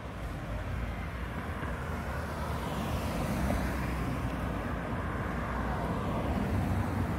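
Street traffic: cars driving past, a steady mix of engine and tyre noise that slowly grows louder, with a swell of tyre hiss about three seconds in.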